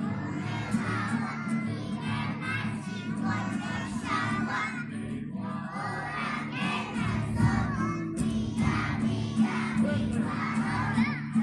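A group of young children singing a song together, with crowd noise behind.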